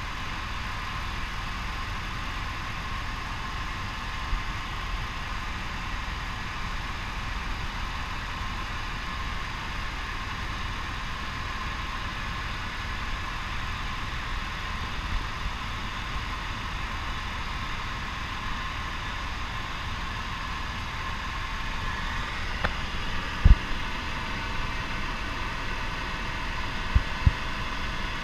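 Helicopter in flight heard from inside the cabin: a steady whine made of several high tones over a constant low rumble. A few short low thumps come near the end.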